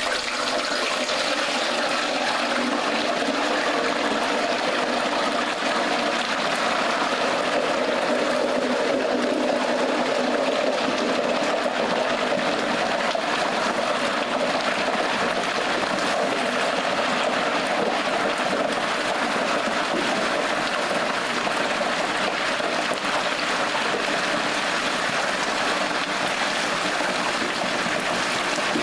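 Whole turkey frying in hot oil in a Butterball XL electric turkey fryer, just lowered in: a steady, loud bubbling sizzle.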